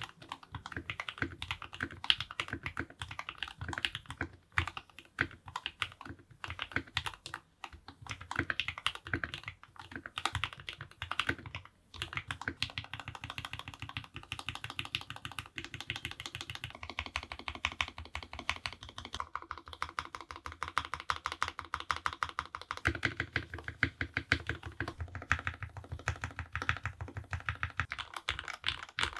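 Typing on a modded Keychron K6 Pro mechanical keyboard with Gateron Oil King linear switches lubed with Krytox 205g, an FR4 plate, tape mod and PBT keycaps: steady, rapid keystrokes. After a brief pause about twelve seconds in, the typing gets faster and more even.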